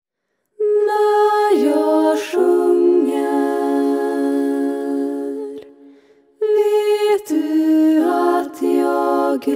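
Women's voices singing a cappella in close harmony, holding wordless chords. The phrase starts on a single note about half a second in and spreads into several parts. It fades out a little past the middle, and a second phrase comes in.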